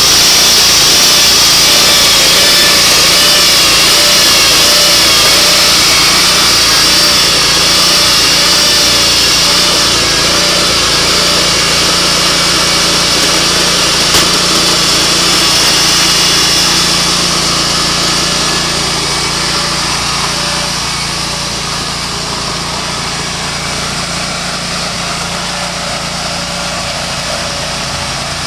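Portable sawmill's engine running hard while the saw cuts through mesquite, the pitch wavering as it works. About seventeen seconds in the cutting sound eases off and the engine runs on more quietly.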